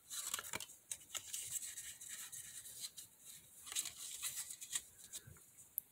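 Foil booster-pack wrapper being handled and torn open by hand: soft, irregular crinkling and scratchy rustles.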